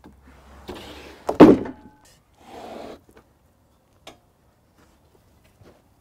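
Heavy, freshly sawn red oak slab dragged and flopped down onto a stack of wooden slabs. A short scrape ends in one loud wooden thud about a second and a half in, followed by a softer scraping shuffle as it settles.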